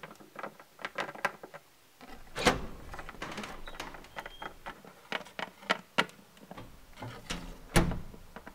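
Hard plastic Littlest Pet Shop toy figure tapped along a wooden tabletop: a run of irregular clicks and knocks like little footsteps, with a rubbing, handling stretch about two to four seconds in and a louder knock near the end.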